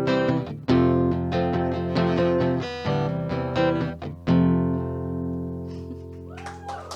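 Guitar playing the closing strums of a simple two-chord song. A last chord is struck about four seconds in and left to ring and slowly fade.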